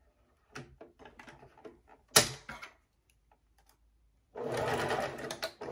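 A few light clicks and one sharp knock, then about four seconds in an electric sewing machine starts stitching, a steady rapid run with a brief break near the end.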